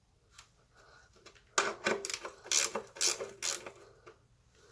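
Ratcheting box-end wrench clicking as it is swung back and forth on an oil pan drain plug, loosening it. A few faint clicks at first, then a run of louder clicks about three a second from about a second and a half in.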